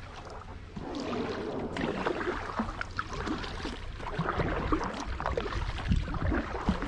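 Kayak paddle dipping and splashing in shallow water, with water dripping off the blades and small knocks.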